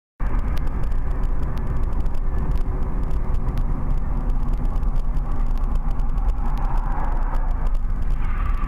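Road and engine noise of a moving car heard through a dashboard camera's microphone inside the cabin: a steady low rumble with scattered faint ticks, starting suddenly a moment in.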